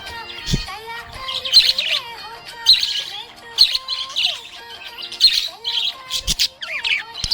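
Budgerigar chirping and warbling in short bursts about once a second, over background music.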